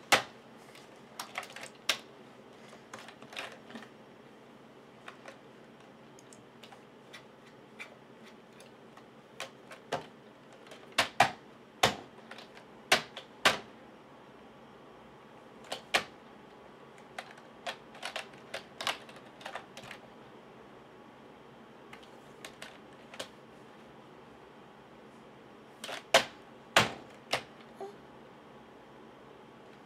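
A baby slapping and pressing the keys of a computer keyboard: irregular clacks and taps with pauses between, the loudest strikes coming in quick clusters about a third of the way in and again near the end.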